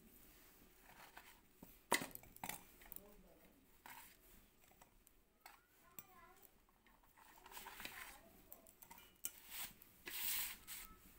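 Chopped vegetables and cashews dropped by hand into a stainless steel jar off a steel plate: scattered knocks and clinks on the steel, the sharpest about two seconds in, with rustling handling noise near the end.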